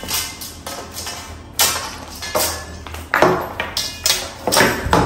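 A large stainless-steel plate knocking on a table several times, each knock ringing briefly, mixed with the crinkle of an aluminium foil container being handled and turned over onto the plate.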